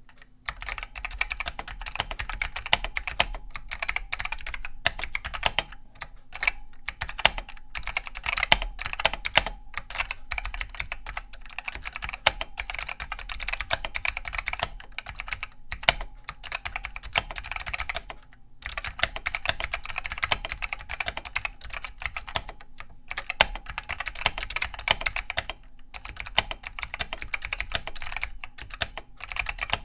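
Fast continuous typing on a Tellervision GP101 mechanical keyboard with simplified Alps SKBM White switches, a dense stream of key clicks broken by a couple of brief pauses.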